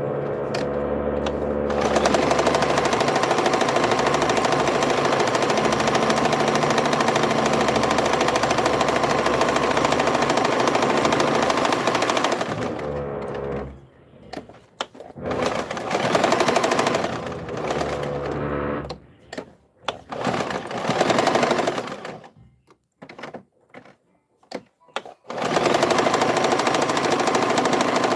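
Domestic sewing machine stitching a tight, close zigzag: one long steady run, then several short runs with brief stops, a few seconds of quiet, and another steady run near the end.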